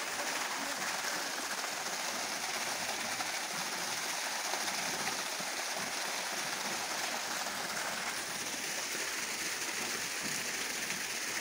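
Water spilling from an outlet into a concrete pool and running along a channel: a steady splashing rush.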